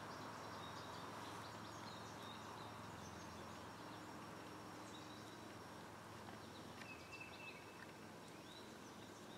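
Quiet outdoor ambience with a low steady hum, and faint bird calls chirping now and then, the clearest about seven seconds in.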